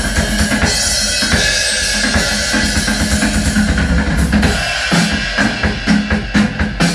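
Drum-heavy sound-test music played loud through a bench of bare speaker drivers: four Jackhammer woofers, two JBL subwoofers and two Crown horn tweeters, all run from one amplifier. It has a steady kick-and-snare beat with deep bass.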